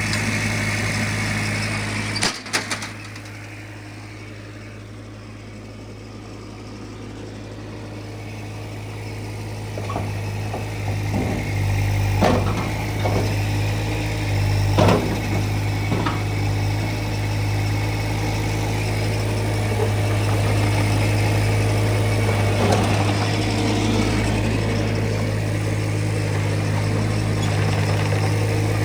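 Diesel engine of a Ditch Witch SK650 compact track loader running steadily. A couple of clicks about two seconds in are followed by a drop in level that slowly builds back up, and several short knocks or clanks come around the middle.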